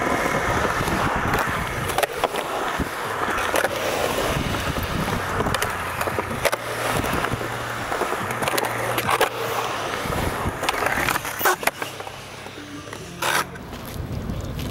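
Skateboard wheels rolling on the concrete of a skatepark bowl, a continuous rumbling roll, with a few sharp clacks of the board at intervals.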